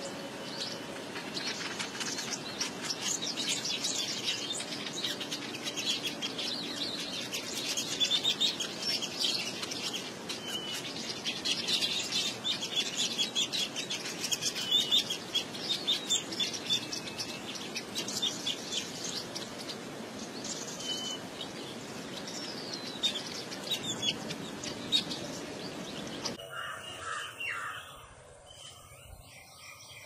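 Weaver birds chattering and chirping in dense, overlapping short calls, as at a nesting colony. About four seconds before the end this drops to fewer, quieter chirps.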